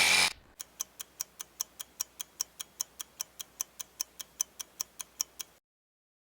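A power tool grinding metal cuts off just after the start. Then a faint, even ticking follows, like a clock, about five ticks a second, stopping suddenly near the end.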